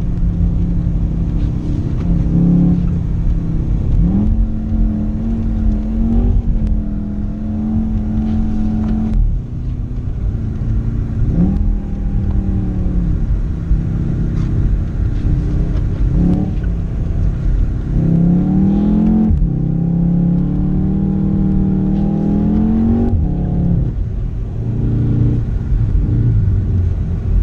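Car engine heard from inside the cabin, revving up several times under hard throttle, its pitch climbing for a few seconds and then dropping away suddenly, over a steady low road and tyre rumble.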